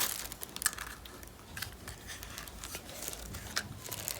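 Light rustling and scattered small clicks of headphone packaging being handled and opened, much quieter than the loud crinkling just before.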